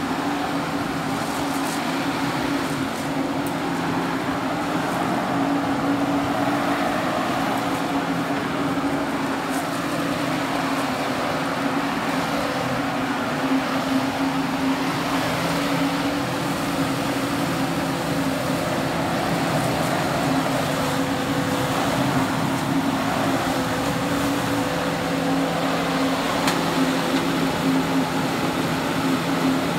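A motor running steadily, a constant hum with a few held tones and no breaks.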